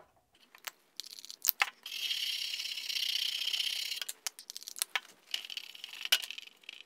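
A stiff brush with isopropyl alcohol scrubbing the solder side of a circuit board: a rapid scratchy bristle scrubbing for about two seconds, then lighter brushing strokes, with small clicks and taps of the brush and bottle around it.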